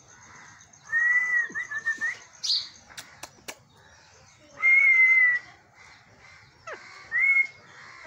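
Alexandrine parakeets calling: three loud, drawn-out calls, the first about a second in, one near the middle and a short one near the end. A few sharp clicks fall between the first and second calls.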